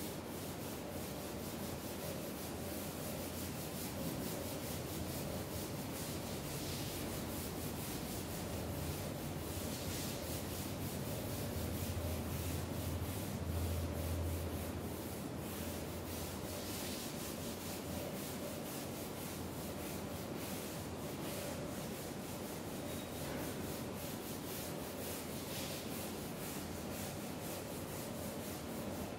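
Board duster rubbing across a chalkboard, a steady scrubbing as the chalk writing is wiped off, over a steady low hum.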